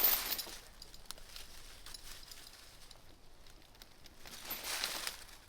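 A heavy steel chain rattling briefly as it is wrapped around a branch, followed by faint rustling and handling noise that swells again near the end.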